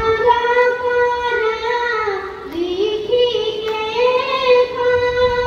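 A boy singing a slow Assamese devotional chant solo into a microphone, holding long notes, with a short dip and rising slide into the next phrase about halfway through.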